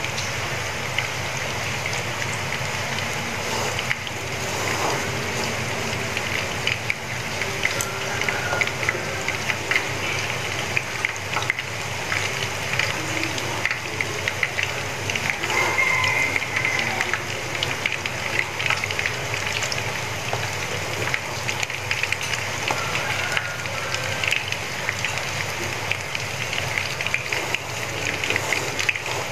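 Battered tiny-shrimp fritters sizzling and crackling steadily in hot oil in a frying pan.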